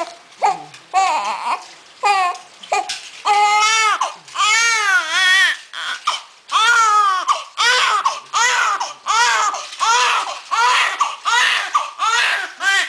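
Newborn baby crying: separate wails at first, then longer drawn-out wails, then rapid, regular cries of about one and a half a second from roughly seven seconds in.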